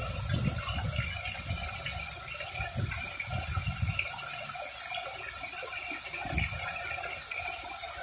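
Fountain jets spraying and splashing down into the basin in a steady rush, with irregular low rumbles.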